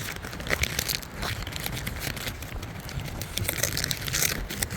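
A bag of popcorn crinkling and rustling as it is worked and pulled open by hand, in irregular crackles with a louder rustle near the end.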